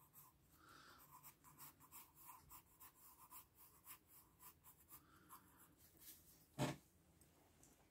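Orange colored pencil shading on drawing paper: faint, quick scratchy strokes at about four a second. A single louder knock comes about six and a half seconds in.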